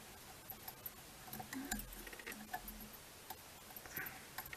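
Faint, irregular light ticks and clicks of a metal whip finish tool and hanging thread bobbin at a fly-tying vise, as whip finishes are wound onto the head of the fly.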